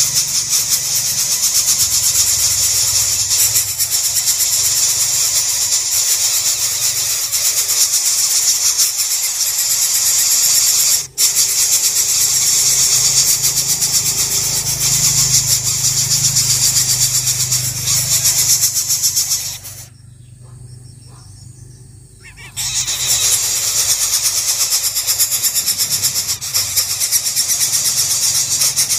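Coucal nestlings begging: a continuous, loud, high-pitched buzzing hiss with a fast rasping texture. It breaks off very briefly near the middle, then cuts out for about two seconds before resuming.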